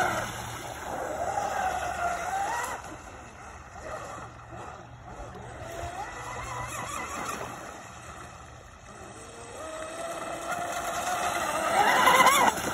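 Pro Boat Blackjack 29 radio-controlled catamaran running on a 6S battery: the whine of its brushless motor and propeller glides up and down in pitch with the throttle. It fades as the boat runs far out in the middle, then grows loud again near the end.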